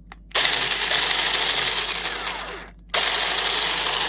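Battery-powered mini chainsaw (21-volt cordless) running with a loud, dense motor-and-chain whir; it starts about a third of a second in, winds down near the three-quarter mark and starts again abruptly.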